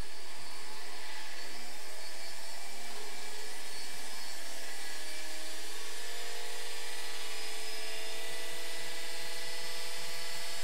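Small electric motors spinning the gyroscope rotors of a home-built inertial propulsion rig, a steady motor whine whose pitch slowly rises as the gyros come up to speed.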